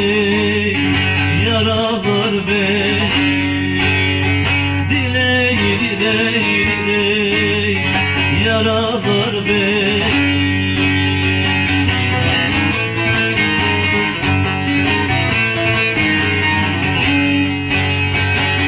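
Bağlama (Turkish long-necked saz) playing a steady folk melody, with a man's ornamented, wavering singing over it in the first half; from about halfway on the saz plays alone.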